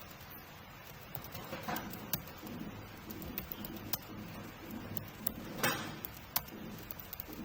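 Computer keyboard typing: irregular key clicks, with a couple of louder knocks about two seconds in and near the end.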